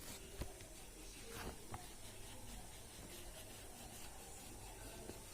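Faint scratching of colouring on paper, with a few light taps.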